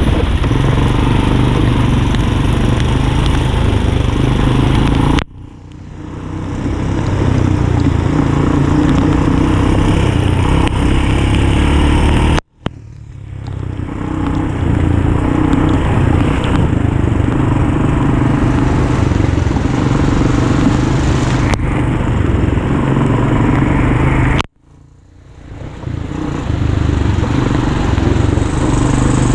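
ATV engine running while riding along a rough dirt trail, with heavy low rumble. The sound drops out abruptly three times and swells back within a second or two each time.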